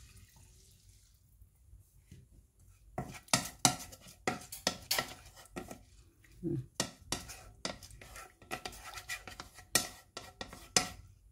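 Wooden spatula stirring rice in chicken broth in a pot, knocking and scraping against the pot's sides and bottom. Irregular sharp knocks, several a second, starting about three seconds in.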